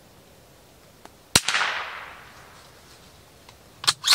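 A single .22 LR shot from a Ruger American bolt-action rifle about a second in, its report trailing off over about a second. Two sharp clicks follow near the end.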